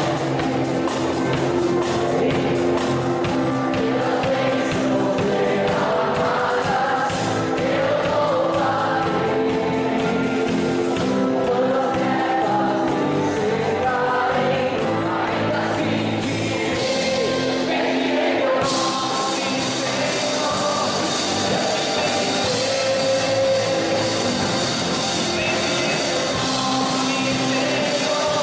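A live band playing a gospel-style Christian song with singing. The cymbals drop out for several seconds in the middle, then come back.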